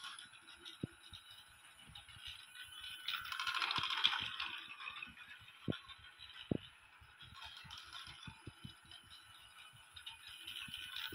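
Battery-powered toy Christmas train running on its plastic track, its motor and wheels making a light rattle with irregular clicks over the rail joints. The rattle grows louder for a couple of seconds about a third of the way in and again at the end, as the train passes close.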